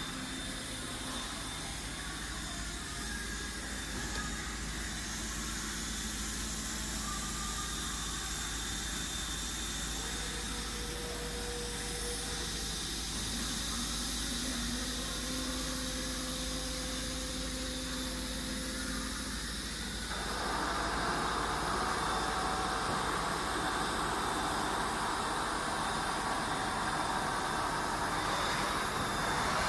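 Soraluce FL 5000 milling machine running, with a steady low hum and hiss and short steady whines that come and go. About two-thirds of the way through, a louder hissing rush starts and keeps going.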